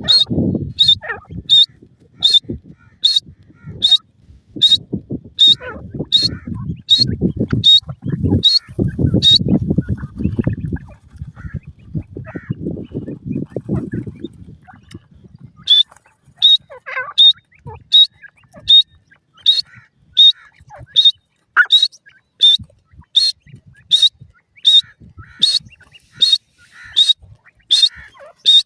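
Francolin calling: a short, sharp high note repeated very regularly, about twice a second. It stops for a few seconds about halfway through, then starts again. A low rumbling noise runs under the first half.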